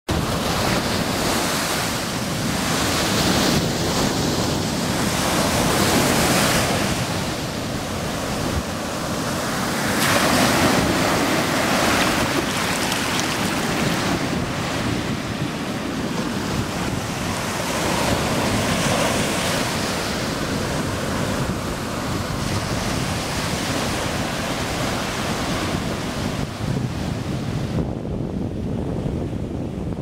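Ocean surf breaking and washing up a sandy beach, a continuous rush that swells and ebbs every few seconds, with wind rumbling on the microphone. The high hiss thins near the end.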